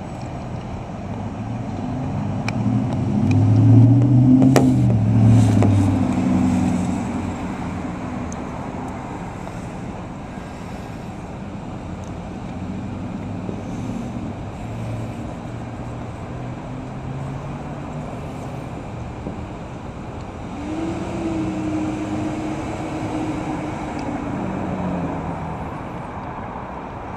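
Road traffic: motor vehicles passing, with engine hum rising and falling as they go by. The loudest pass comes about four seconds in, and another engine swells and fades about three quarters of the way through.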